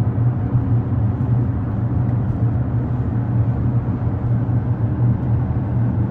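Steady road and tyre noise inside the cabin of a Polestar 3 Performance on 22-inch wheels at highway speed: an even low drone with no engine note. It is quiet for the speed, reading roughly 60 dB on a sound meter.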